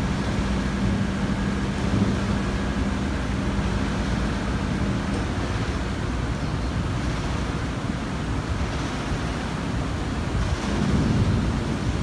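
Wind rushing over the microphone with a steady wash of distant traffic noise ahead of a thunderstorm. A low hum stops about five seconds in, and a low rumble swells briefly near the end.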